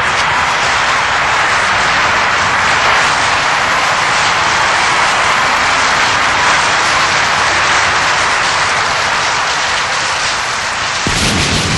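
Steady loud rushing noise with no distinct tone; a deep rumble comes in near the end.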